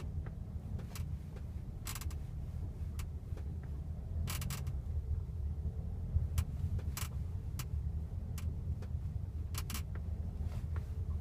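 Kia Sportage suspension squeaking in short, sharp bursts about once a second, some in quick pairs, over the steady low rumble of the car on the move.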